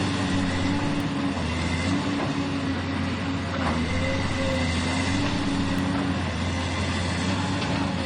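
Excavator working: its diesel engine runs steadily, the pitch wavering slightly up and down, with a faint steady high whine above it.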